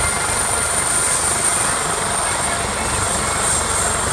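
Medical helicopter running on the ground with its main rotor turning: a steady high turbine whine over the fast, even beat of the rotor blades.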